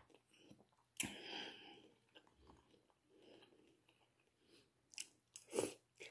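Faint eating sounds close to the microphone: a person chewing, with a sudden louder mouth sound about a second in and two short ones near the end.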